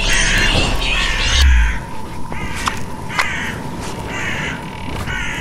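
Crows cawing, a run of harsh calls coming once or twice a second, over a faint steady high tone, with a low thud about a second and a half in.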